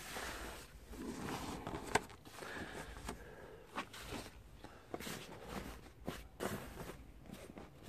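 Nylon motorcycle cover rustling as it is pulled and adjusted by hand, with scattered light clicks and knocks.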